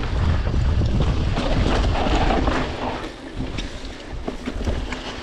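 Wind buffeting the microphone of a mountain bike ride, with scattered clicks and rattles from the bike going over rough ground. The wind rumble eases about three seconds in.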